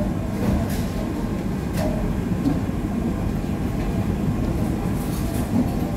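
Steady low rumble of background room noise, with a few short, soft clicks and rustles from handling food and its wrapping.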